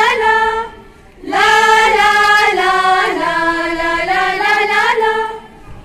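Group of young women singing a Hindi patriotic song together in unison. The singing breaks off briefly about a second in, then goes on in long held notes.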